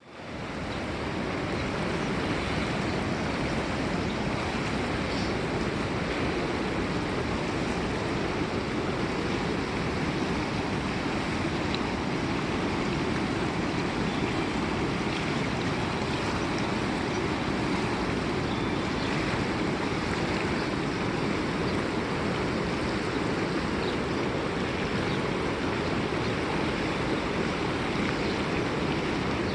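A river flowing: a steady, unbroken rush of water that fades in over the first second.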